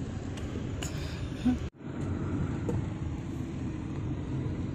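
Steady engine and road noise heard from inside a car's cabin while driving in traffic. A short loud blip comes about a second and a half in, followed by a brief dropout.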